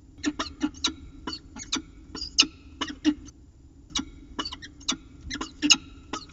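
A rapid, uneven series of short clicking calls from an animal, about three a second, some louder than others.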